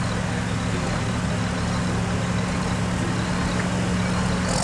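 John Deere farm tractor's engine running steadily at a constant speed while it waits at the start of a pull.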